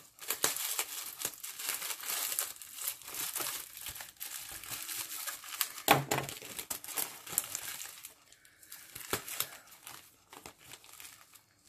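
Bubble wrap and plastic packaging crinkling and tearing as a package is unwrapped by hand. The rustling is dense for about eight seconds, loudest around six seconds in, then thins to scattered crackles.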